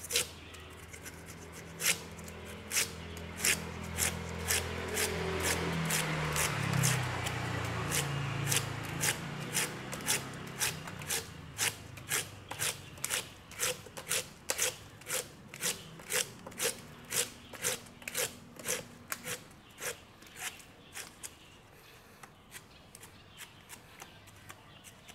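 A large cleaver-style knife cutting the rind off a whole pineapple in quick, repeated short strokes, about two cuts a second, as the peel is pared away thinly in many cuts. A low hum runs under the first several seconds.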